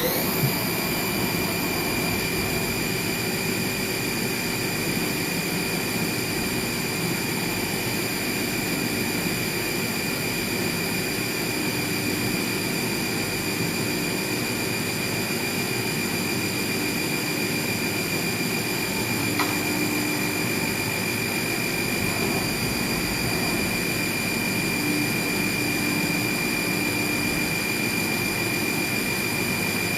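CNC milling machine spindle running at speed with a steady high whine over a hiss, machining an ABS plastic enclosure. One short click about two-thirds of the way through.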